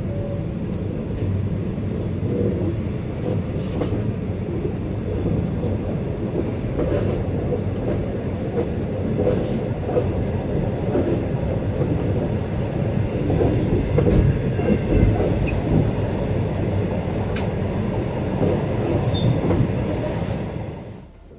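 Passenger train running on the track: a steady loud rumble of wheels and running gear with scattered clicks, cutting off shortly before the end.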